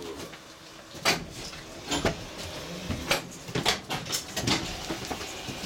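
A series of irregular sharp clicks and knocks, roughly one every half second to a second, over a low rumble, inside a funicular car's cab.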